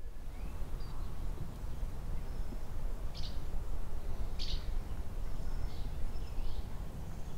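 Outdoor ambience: small birds chirping now and then, with two sharper chirps about three and four and a half seconds in, over a steady low rumble.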